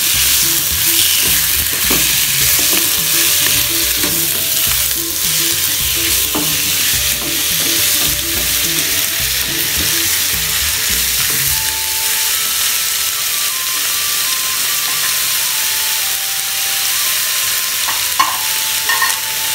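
Raw chicken pieces sizzling in hot oil in a non-stick wok with onion, garlic and ginger. A wooden spatula scrapes and knocks against the pan as they are stirred, and the knocks thin out in the second half.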